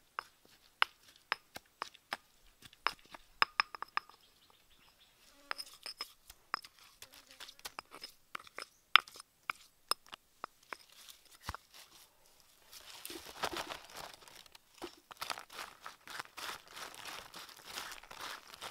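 A stone pestle knocks in a small stone mortar as chili is pounded, giving sharp, irregular taps a few times a second. About two-thirds of the way in, this gives way to a denser crinkling rustle as a hand mixes food on a banana leaf in a woven basket.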